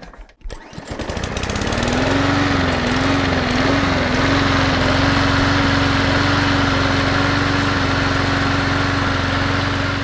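Small gasoline lawn mower engine starting up. It speeds up over the first few seconds, its pitch wavering briefly as it settles, then runs at a steady speed.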